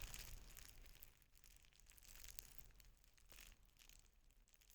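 Near silence with a few faint, scattered crackles and clicks.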